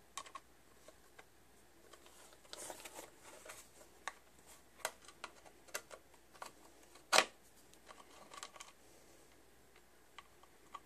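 Scattered small clicks, taps and scrapes of a screwdriver and hands working screws into a hard plastic housing, with one sharper knock about seven seconds in.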